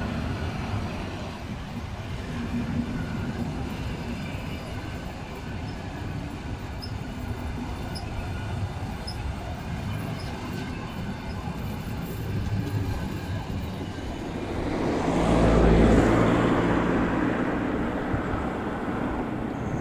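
Passenger coaches of a steam-hauled train rolling past close by, a steady rumble of wheels on the rails. About three quarters of the way in, a louder swell of noise rises and fades.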